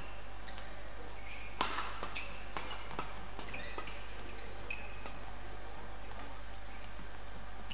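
Badminton rally: sharp racket strikes on the shuttlecock, the loudest about a second and a half in, mixed with short high squeaks of players' shoes on the court floor. The hits thin out in the second half.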